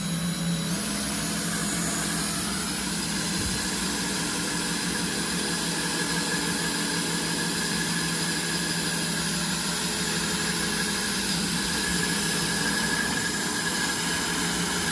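Cordless drill running steadily in reverse at low gear, its hole saw spinning against a loaded 11 mm Technora-sheathed rope to abrade through the sheath, with a steady whine.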